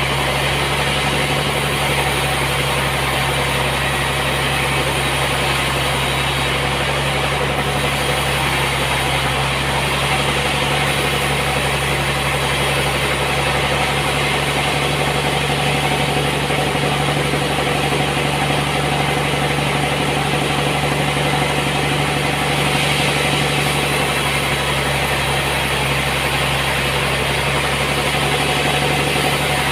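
Sawmill machinery running steadily: a constant mechanical drone with a low hum and a hiss above it, with no distinct knocks or changes.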